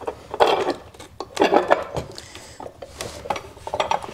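Steel pipe clamps clinking and scraping against one another and the bench as they are shifted into position under a board, in three short bouts of clatter.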